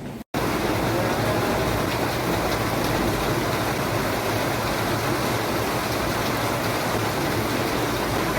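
Steady rain falling, an even hiss that starts abruptly just after the beginning.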